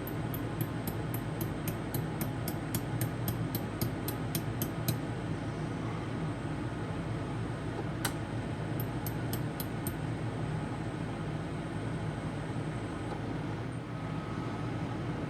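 Orion LZR100 pulsed laser welder firing, a sharp tick with each pulse, about four a second for the first five seconds, one louder click about eight seconds in, then a short run of five more ticks. A steady low hum runs underneath.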